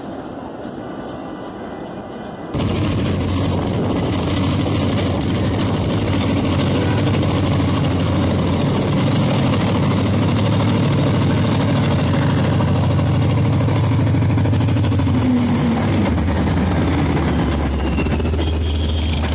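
Diesel locomotive hauling passenger coaches passing close by, its engine running with a loud, steady low drone and rough rattling; the engine note drops somewhat as it goes past, about three-quarters of the way through. The loud train sound cuts in abruptly about two and a half seconds in, after a quieter, muffled sound.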